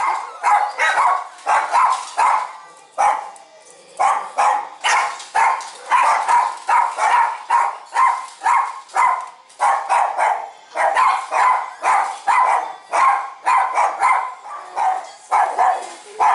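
Dogs with kennel cough barking over and over, about two barks a second, with a short lull a few seconds in.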